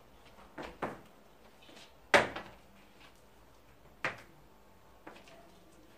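A handful of separate knocks and thumps from a person moving about a room, the loudest about two seconds in.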